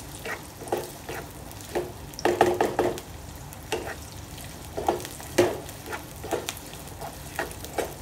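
Wooden spatula scraping and knocking against a non-stick kadhai, stirring cubed onions and garlic that sizzle steadily in hot olive oil on a high flame. The strokes come irregularly, with the busiest run about two to three seconds in.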